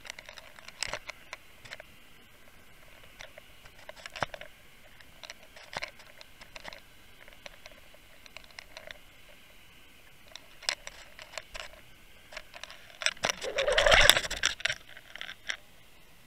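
Irregular clicks and knocks picked up by an underwater camera riding the line above a bucktail jig as it is worked along the bottom, over a faint steady hiss. About fourteen seconds in comes a louder rush of noise that rises in pitch.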